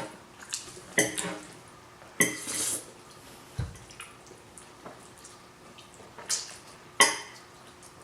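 Forks clinking and scraping against a plate of spaghetti: a handful of sharp metallic clinks, scattered irregularly, with a brief scrape just after two seconds.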